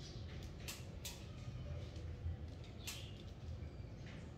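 A few short metallic clicks from the punching bag's hanging chain and hook as they are handled and adjusted at the ceiling, over a low steady hum.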